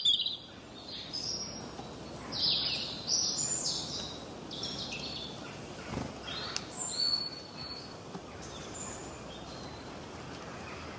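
Small aviary birds chirping: short calls that fall in pitch, packed close together in the first few seconds and sparser after, over steady background noise. A single knock about six seconds in.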